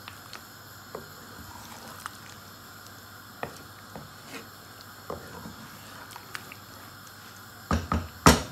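A wooden spatula stirring a chicken and bottle gourd curry in a nonstick pan, with soft squishes and scattered small taps. Near the end come several loud, sharp knocks of the spatula against the pan.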